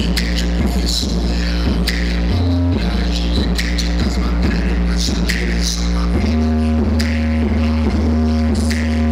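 Loud music with a beat and vocals played through a car sound system built for bass, with long, deep bass notes that change pitch a couple of times.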